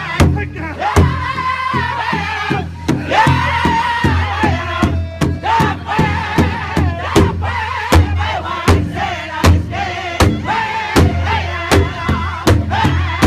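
Powwow drum group: several men singing a high-pitched song together over a large hide drum struck in unison at about two beats a second.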